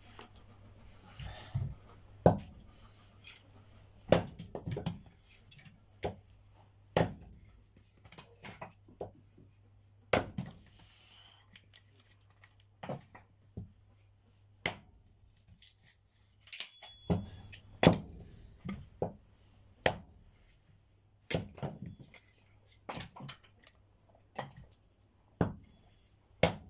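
Irregular sharp wooden knocks and clatters of firewood being handled, roughly one every second or two.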